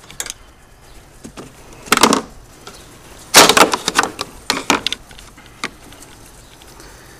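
A hand pushing and flexing a plastic under-hood panel: short scrapes and clicks of plastic, a brief one about two seconds in and a louder cluster from about three and a half to five seconds in.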